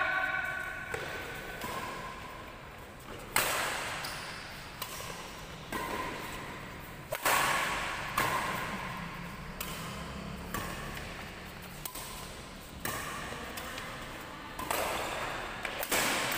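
Badminton rackets striking a shuttlecock in a doubles rally: a sharp crack every second or so, about a dozen hits, each ringing on in the large reverberant hall.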